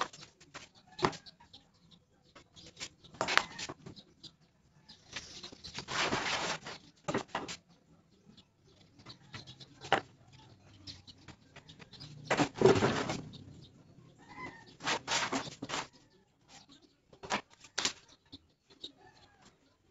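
Handling sounds of marking out plywood: sharp knocks as a metal ruler and a combination square are laid on and moved over the sheets, and several scraping strokes about a second long, the longest a few seconds in and again past the middle, as a pen draws lines along the straightedge.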